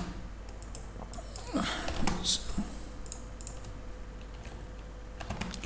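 Scattered clicks and taps of a computer keyboard and mouse over a low steady hum, with a short voice sound about a second and a half in.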